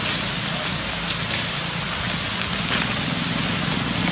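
Dry fallen leaves crackling and rustling under footsteps, a steady crackly noise with a few sharper snaps.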